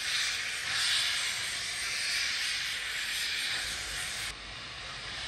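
Steam hissing from a BR Standard Class 4MT steam locomotive, a steady hiss that swells about a second in and drops abruptly a little over four seconds in. A low rumble of the train's coaches rolling comes in near the end.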